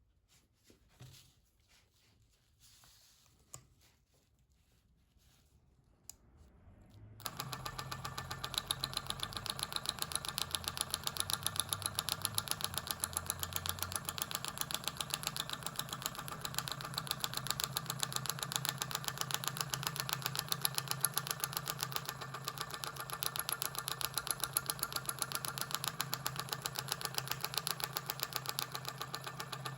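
Dot peen marking machine running: its marking pin strikes the workpiece in a very fast, even tapping over a steady low hum. It starts about seven seconds in and cuts off abruptly at the end.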